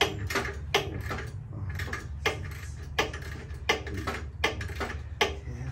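About a dozen sharp clicks at uneven intervals, over a steady low hum.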